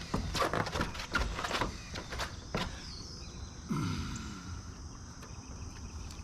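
Quick crinkling and clicking of a waterproof roofing membrane being handled and pressed down on a roof. About four seconds in comes a short falling sigh.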